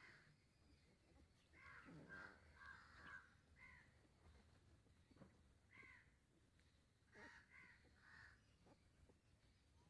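Faint short animal calls, some in quick groups of two or three, at irregular intervals with quiet gaps between.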